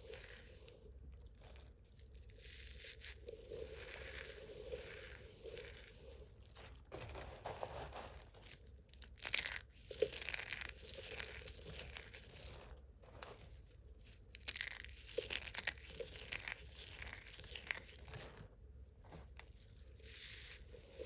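Hard, dry soap being crushed and broken up, crunching and crumbling in irregular crackly bursts, with a few sharper cracks about halfway through.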